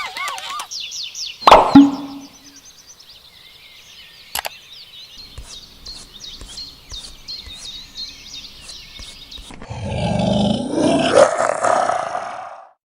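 A run of animal calls: high, rapid chirping, a sharp knock, a long stretch of quiet, high, repeated chirps, then a loud rough roar lasting about three seconds near the end.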